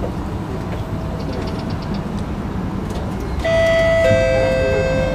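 Singapore MRT train running with a steady low rumble inside the carriage, then about three and a half seconds in the onboard two-tone chime: a higher note and then a lower one, both ringing on. The chime introduces the next-station announcement.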